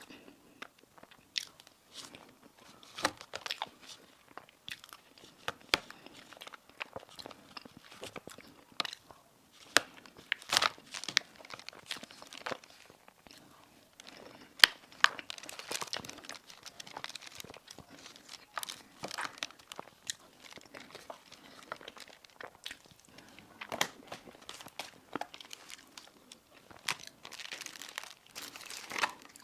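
Close-up eating sounds: crisp pastry crunching under repeated bites, with chewing in between, as a string of sharp crackles that comes in clusters.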